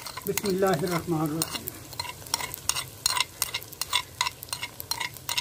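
Metal fork scraping and tapping on a small clay bowl in a quick run of clicks as chopped green chillies are pushed off it, over onions and tomatoes sizzling in hot oil in a clay karahi.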